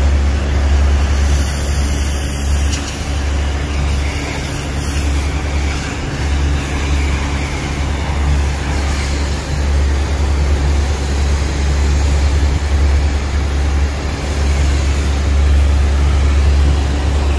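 Pressure washer spraying water onto a truck: a steady hiss of spray over a low, steady machine drone.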